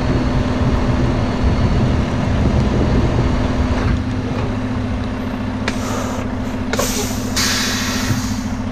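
Freightliner Cascadia semi truck's diesel engine idling steadily. In the second half, air hisses from the truck's air system in several short bursts, the longest near the end.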